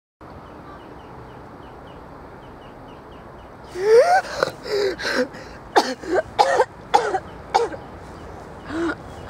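A young woman gasps loudly for breath about four seconds in, then coughs and gasps in a quick run of short bursts, with one more gasp near the end, like someone suddenly coming to.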